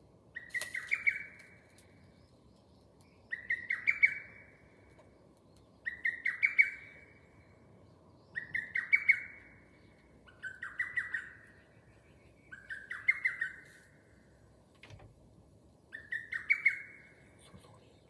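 Lesser cuckoo (hototogisu) singing its quick multi-note phrase, repeated seven times at intervals of two to three seconds.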